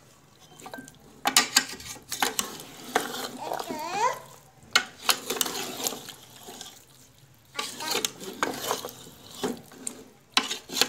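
A metal spoon stirring trotters, tomatoes and spices in a metal pressure-cooker pot, scraping and clattering against the pot in bouts. The stirring starts about a second in and pauses briefly in the middle.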